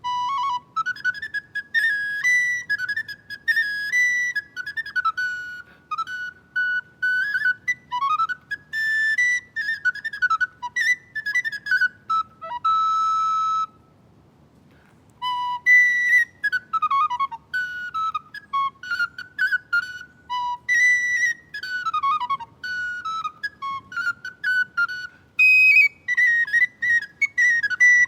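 Solo recorder playing a fast, ornamented tune of short notes and quick trills, with a brief pause about halfway through.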